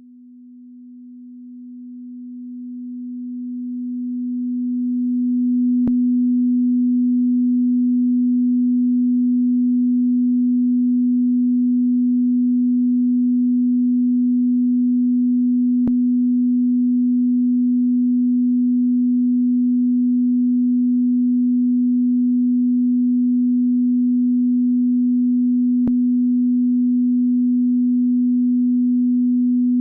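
Telephone beep tone: one steady, low, pure pitch that fades in over the first several seconds and then holds unchanged. Three faint clicks come about ten seconds apart.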